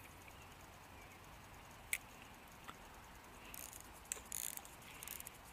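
Pflueger President spinning reel being cranked in short spells, its gears ticking faintly, with one sharp click about two seconds in.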